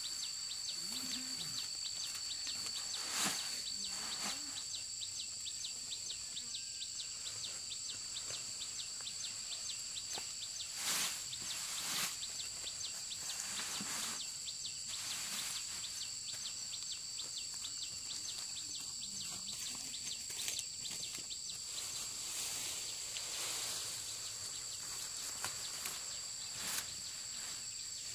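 Steady high-pitched chorus of insects trilling, with a few brief knocks or rustles about three, eleven and twelve seconds in.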